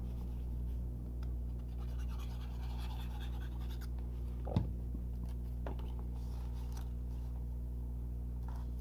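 Cardstock and a plastic glue bottle being handled as glue is squeezed onto a paper strip and the strip is pressed into place: faint scratching and small clicks over a steady low hum, with one sharper tap about four and a half seconds in.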